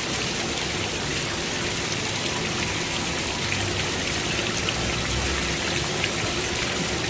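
Heavy rain pouring down in a steady, even hiss, with scattered drops ticking on nearby surfaces.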